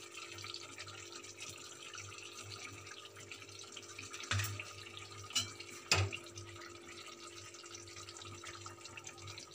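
Green chicken gravy simmering in a steel kadai, a faint steady watery hiss, with a few short clinks of a spoon against the pan about four, five and six seconds in as ginger-garlic paste goes in and is stirred.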